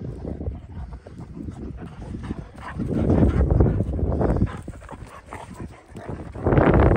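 Dogs barking and whining as they play, louder about three seconds in and again near the end, over a low rumble of wind on the microphone.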